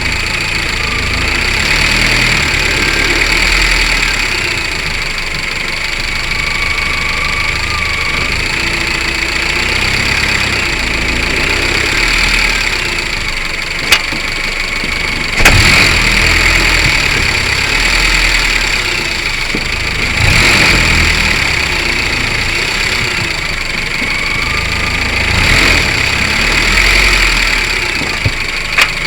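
Honda Civic 5D running, a steady rumble and hiss with slow swells, broken by a few sharp knocks, the loudest about halfway through and another near the end. The knocks are the one the owner hears from the right-hand wheel area.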